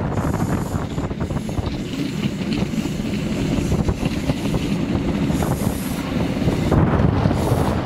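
A moving train: a steady rumble of wheels on rails, with wind buffeting the microphone.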